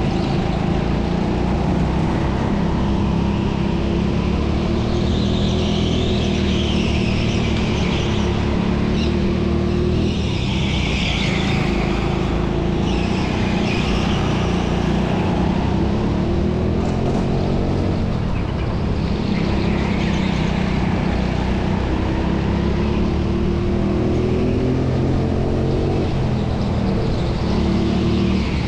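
Racing go-kart engine heard from onboard, running hard, its pitch rising and falling again and again through the corners.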